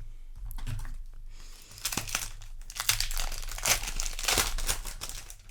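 Foil booster pack wrapper crinkling and crackling as it is handled, strongest over the second half.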